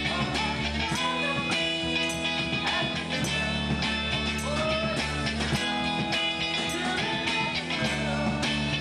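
Rock band playing live at rehearsal: electric guitar through a Marshall amplifier over bass and drums, with steady cymbal and drum hits.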